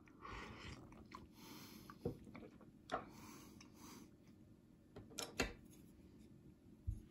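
Quiet mouth sounds of someone tasting cup-noodle soup: several short breathy, slurp-like noises and a handful of sharp clicks over a low room hum.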